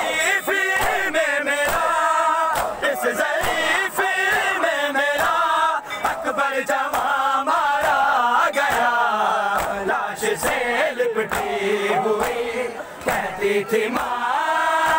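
Noha, an Urdu mourning lament, chanted in unison by a crowd of men, with hand slaps on bare chests (matam) keeping a beat about once or twice a second.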